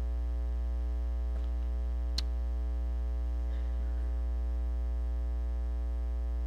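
Steady electrical mains hum in the sound system, a low buzz with a long even stack of overtones that never changes. A single sharp click comes about two seconds in.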